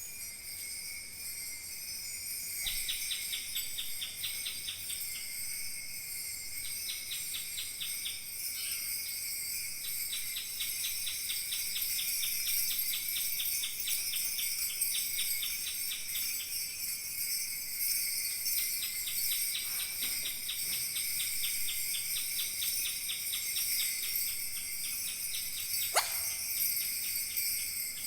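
Kaskawillas, Mapuche bronze jingle bells, shaken in a dense high jingling to imitate falling water, with runs of quick, even shakes that start and stop every few seconds. A single sharp click near the end.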